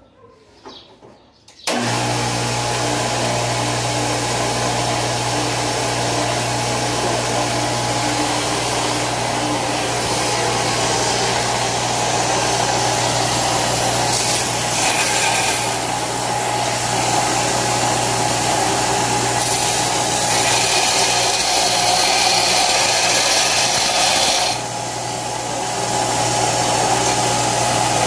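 Belt grinder switched on about two seconds in: its electric motor comes straight up to a steady hum under the hiss of the running coarse grinding belt. The grinding noise swells and changes several times as steel is pressed against the belt.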